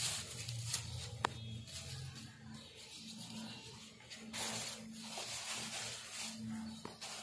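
Rustling and rubbing of a plastic shopping bag and hands, with one sharp click about a second in, over a low steady hum.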